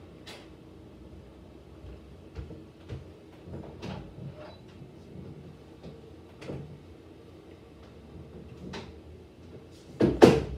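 Quiet handling noise with scattered faint clicks as a lip balm stick is rubbed over the lips, then two loud knocks close together about ten seconds in.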